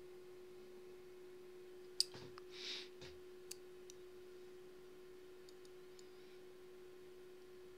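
Faint steady electrical hum, with a sharp click about two seconds in, a short breathy hiss, then a few more light clicks.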